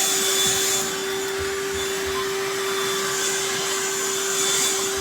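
Black+Decker Dustbuster cordless handheld vacuum running steadily while sucking up seed shells and feathers: a constant motor hum over a rush of air.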